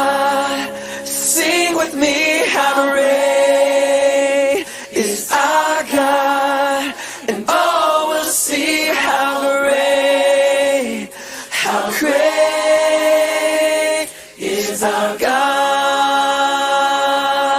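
A choir singing unaccompanied, in long held chords separated by short breaths.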